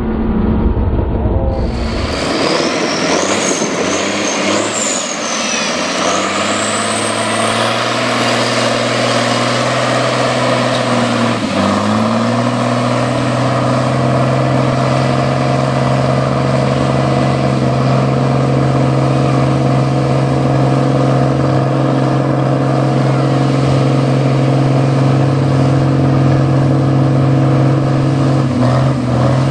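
Engine of a lifted square-body Chevy mud truck running hard at high revs while it churns through a mud hole. The pitch holds steady apart from a brief dip about eleven seconds in, and a high whine rises over the first several seconds. The first second and a half is a different truck throwing mud.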